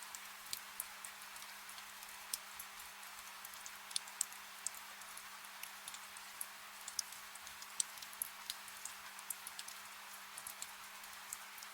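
Soft rain: a steady light hiss with many irregular drip taps, over a faint low hum.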